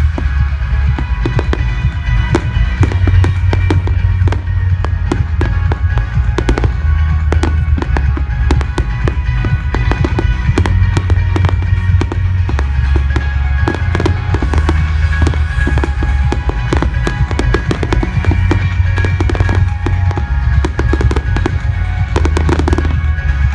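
Fireworks going off in rapid succession, many sharp bangs and crackles, over loud music with a heavy, pulsing bass line.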